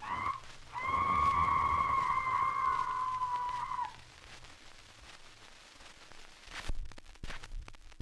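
A short cry, then one long, eerie, high-pitched animal-like cry held steady for about three seconds, dipping slightly at its end, played from a scratchy 78 rpm sound-effects record. Afterwards only record surface hiss and crackle remain.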